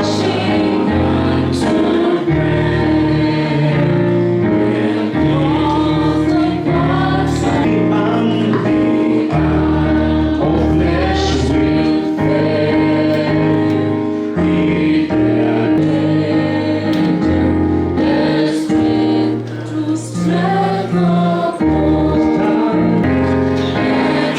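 Gospel choir singing over instrumental backing with a steady bass line.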